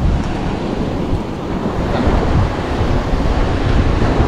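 Wind rushing over the microphone, with surf breaking on the shore.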